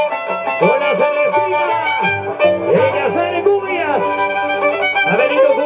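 Violins playing a lively Andean carnival huayno melody with sliding notes over a steady low accompaniment, with a short burst of hiss about four seconds in.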